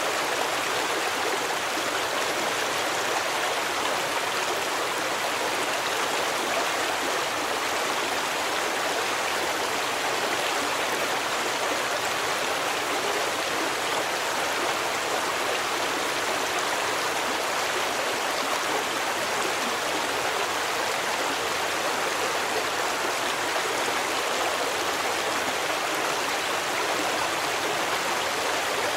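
A stream flowing steadily, an even rushing of water with no breaks or changes.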